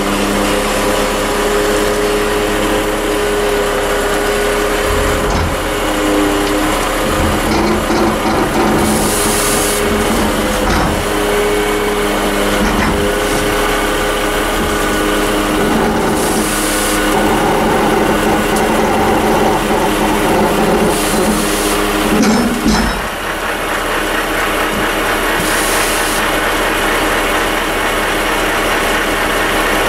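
Hook-lift truck's hydraulic arm hauling a heavily loaded roll-off debris container up onto its bed, the diesel engine held at steady revs to drive the hydraulics, with metal creaking and grinding under the strain. Short bursts of hiss come several times, and a louder knock comes about three-quarters of the way through.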